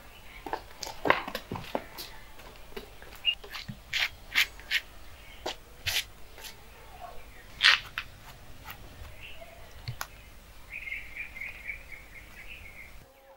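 Small birds chirping, with a quick run of chirps near the end, among scattered sharp clicks and taps.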